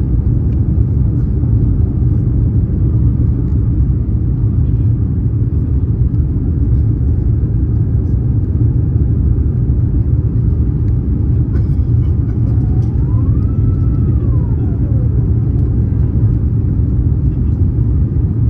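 Steady low rumble inside the cabin of an Airbus A350-900 climbing after take-off: its Rolls-Royce Trent XWB engines at climb power together with airflow over the fuselage. A faint tone glides up, holds briefly and falls back about two-thirds of the way through.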